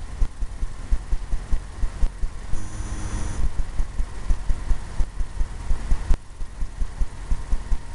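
Paintbrush tapping repeatedly against a stretched canvas, a run of low, uneven thumps several times a second, as evergreen trees are dabbed in with oil paint.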